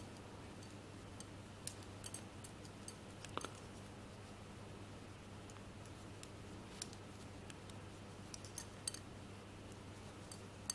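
Metal double-pointed knitting needles clicking and tapping against each other as rib stitches are worked, in light irregular ticks over a faint steady hum.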